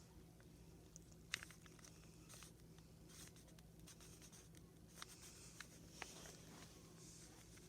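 Faint plastic clicks and scrapes of a 3x3 Rubik's cube's faces being turned by hand, irregular, with the sharpest click about a second in and a few more later.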